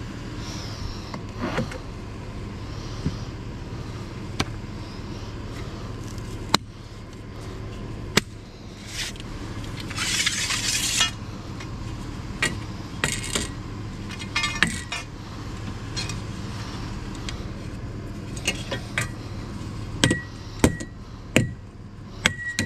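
Aluminium extrusion strips clinking and scraping against each other and a wooden drawer as they are pulled and handled: scattered sharp metal clinks, a longer scraping rattle about ten seconds in, and several quick clinks near the end, over a steady low hum.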